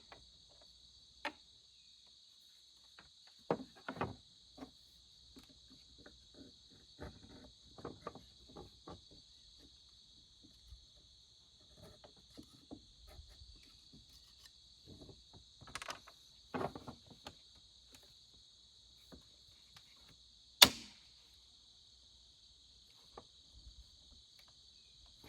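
Scattered clicks, knocks and scrapes of hand tools prying at the chain brake parts of a Husqvarna 395XP chainsaw, with one sharp loud click about twenty seconds in. A steady high chirring of crickets runs underneath.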